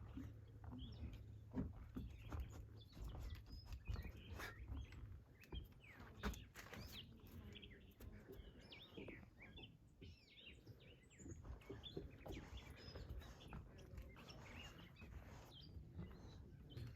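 Faint chirps and short calls of small birds, repeated throughout, over a low rumble of wind and a few soft knocks.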